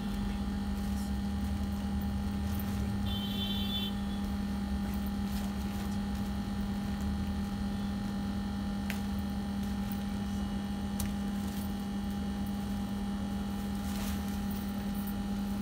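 A steady low electrical hum from a running motor or appliance, with a short high tone about three seconds in and a few faint clicks and rustles as cloth is handled.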